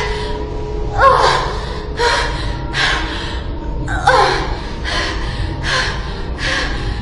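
A woman's short, sharp gasps, about one a second, over a steady low hum.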